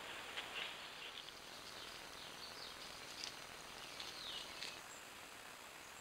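Faint forest ambience with a steady hiss, and brief high chirps and short downward-sliding calls of small birds through the middle. In the first second there are a few soft crackles of dry leaf litter under a cougar's paws.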